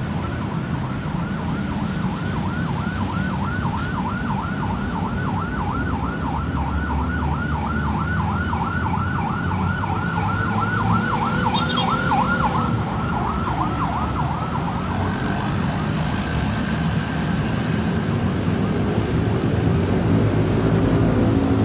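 Ambulance siren in a fast yelp, its pitch rising and falling about four times a second over road traffic noise. The siren stops about fourteen seconds in, leaving traffic running.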